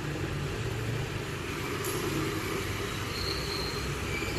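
Sound of a video playing on an iPhone, heard through a small portable speaker connected by cable: mostly hiss with faint low notes, and one click about two seconds in.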